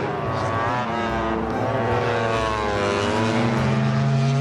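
Racing motorcycle engine running, its pitch wavering up and down.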